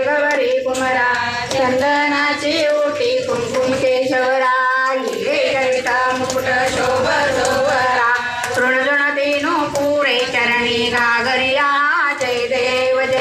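A group of women singing together without a break, a Ram Navami pāḷṇā (cradle song) sung for the infant Rama.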